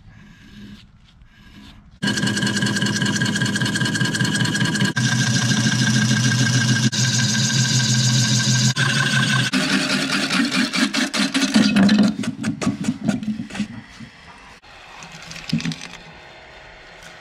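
Wood lathe spinning an elm bowl blank while a gouge cuts into it: a loud, steady droning cut that starts suddenly about two seconds in. After about ten seconds the cut turns rougher and choppier, then it fades out.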